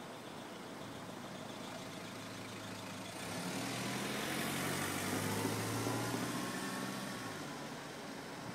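A vehicle passes by with a low engine-like hum, growing louder about three seconds in and fading away near the end.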